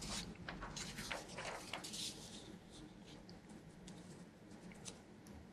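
Faint scratching and tapping of a marker pen writing, in short separate strokes, most of them in the first two seconds.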